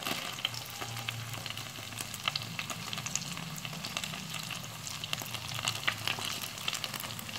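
Pre-wrapped Vietnamese spring rolls (nem) frying in hot oil in a pan: a steady sizzle with many small pops and crackles throughout.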